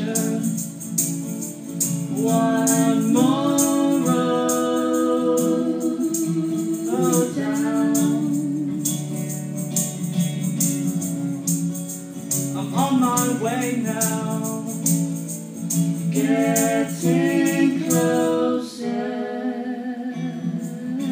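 Acoustic duo playing live: guitar accompaniment and a tambourine shaken in a steady beat, under a held, sliding melody line.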